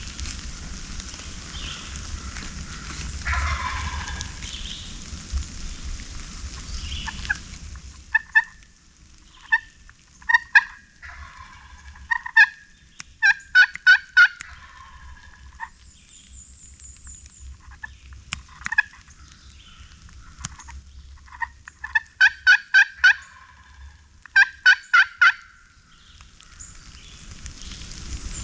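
Turkey yelping: short runs of four to six quick, clear notes, repeated several times, beginning about eight seconds in.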